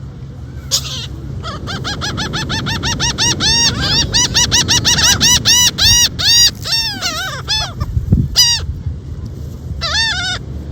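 Seagull calling in a long run of repeated arched notes, several a second, for about seven seconds, then a few more calls near the end, over a steady low rumble.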